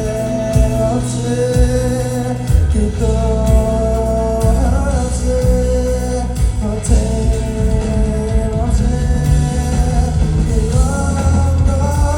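A live rock band playing: held melody notes over a steady bass line and drum beat.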